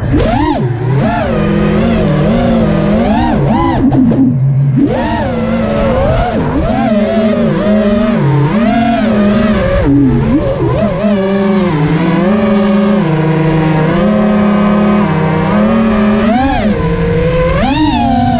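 GEPRC AX-5 five-inch FPV quadcopter's brushless motors and Dalprop 5040 propellers whining loudly, the pitch constantly swooping up and down as the throttle changes. The sound dips briefly about four seconds in.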